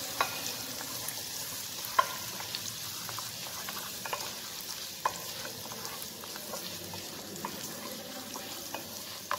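Chopped garlic sizzling gently in hot oil in a small saucepan, cooking off its moisture. A wooden spatula stirs it, with scattered sharp clicks against the pan, the strongest about two seconds in.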